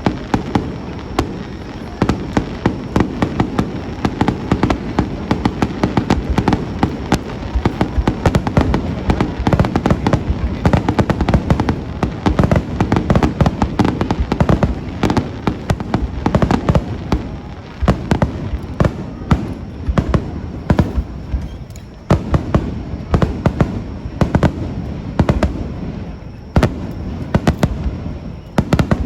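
Fireworks going off in a dense, continuous barrage of many rapid bangs and crackles over a steady low rumble, as many shells are launched and burst at once.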